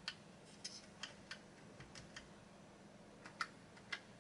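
Faint, separate clicks of single keys being pressed slowly and unevenly on a Commodore PET 2001's small chiclet keyboard, about eight presses with pauses between them.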